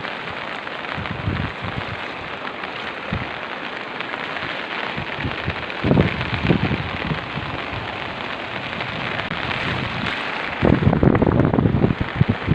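Steady rushing water, from rain and floodwater, with irregular low rumbling surges. It grows louder from about ten seconds in.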